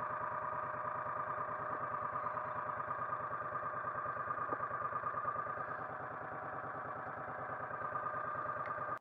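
Vehicle engine running at a steady speed with a fast, even pulsing; it cuts off abruptly at the end.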